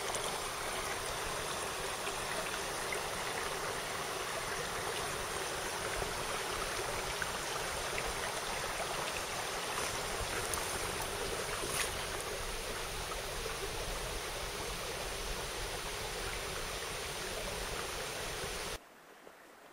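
Mountain stream water rushing steadily, cutting off suddenly near the end.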